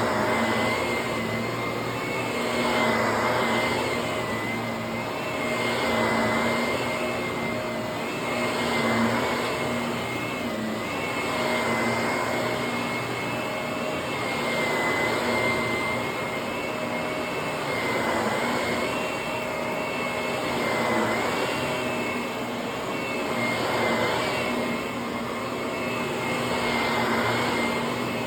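Vacuum cleaner running continuously with a steady high whine, pushed back and forth over carpet. The rush of air swells and falls about every three seconds with each stroke.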